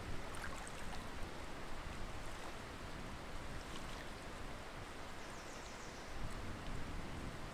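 Steady outdoor wetland ambience, a low rumble and hiss, with a few faint high bird chirps: a couple about half a second in, one near the middle, and a quick little series a little after that.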